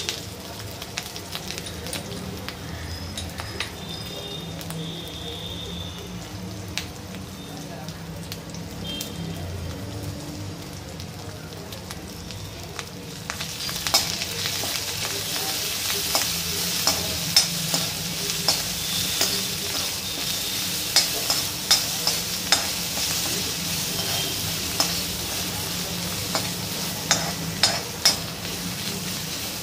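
Peanuts, green chilli paste and curry leaves frying in a steel kadhai. A faint sizzle grows into a loud, steady fizz about halfway through. Over the fizz, a spatula stirs and clicks against the metal pan.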